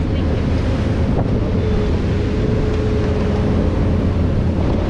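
Wind buffeting the microphone on a moving speedboat, over the steady run of its engine and the rush of its wake. A faint steady whine sounds for a couple of seconds in the middle.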